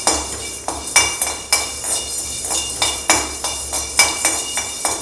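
A perforated metal ladle scrapes and knocks against a hammered steel kadai about three times a second while stirring black peppercorns and fenugreek seeds that are being dry-roasted, with the seeds rattling and the pan ringing faintly.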